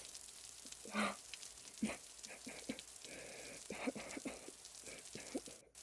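A person crying: short sobs and shaky breaths over a steady hiss of rain. The sound drops out for a moment near the end.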